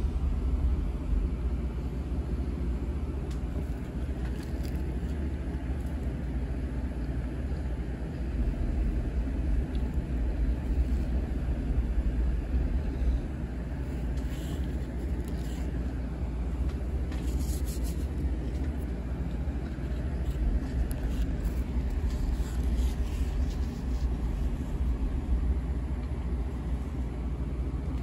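Steady low rumble of background noise, with a few faint ticks about halfway through.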